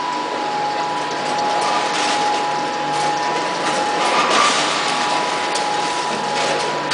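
Vertical packing machine running as it bags frozen dumplings: a steady mechanical whir and clatter with a constant whine. Surges of hiss come about two and four seconds in.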